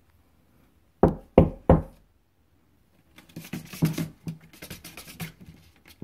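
Three sharp knocks on a wall about a second in, followed by nearly three seconds of quick scratching and scrabbling from animals inside the wall.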